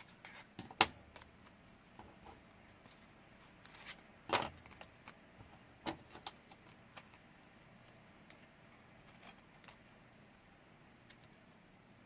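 Scattered light clicks, taps and brief rustles of paper and small craft pieces being handled on a work table. A sharp click comes just under a second in and a longer rustle about four seconds in, then the handling thins out.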